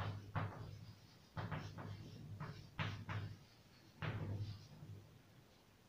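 Chalk writing on a blackboard: short tapping and scratching strokes in four clusters with brief pauses between them, as a word at a time is written.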